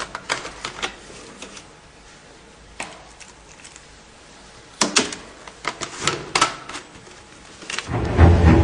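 Scattered light clicks and knocks of tea being made at a counter: a plastic milk bottle, its screw cap and a stirrer in a paper cup being handled. Near the end, loud deep music comes in.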